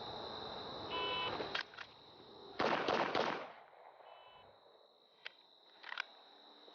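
Shot timer start beep, then about a second and a half later a quick string of three handgun shots fired from the draw, with a fainter second timer beep marking the par time. A few sharp clicks follow, over a steady high chirring of insects.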